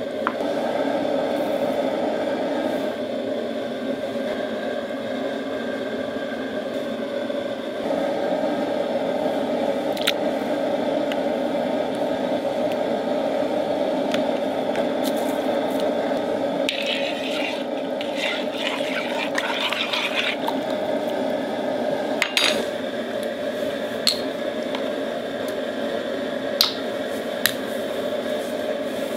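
Steady watery, bubbling liquid noise, with a few light clicks and knocks and a short crackle in the middle.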